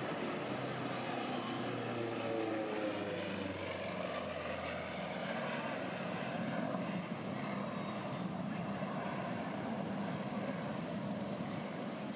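Propeller airplane engine droning as the plane flies past, its pitch falling over the first few seconds and then holding steadier.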